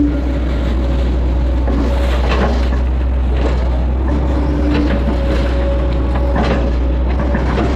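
Hitachi hydraulic excavator's diesel engine running steadily, with a hydraulic whine that comes and goes as the arm and bucket work. Scrapes and knocks of the bucket digging wet mud from a drainage ditch come several times in the middle.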